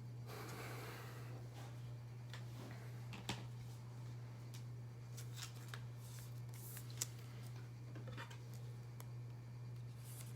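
Trading cards being handled at a table: faint rustles and light clicks scattered through, with one sharper click about three seconds in and another about seven seconds in, over a steady low electrical hum.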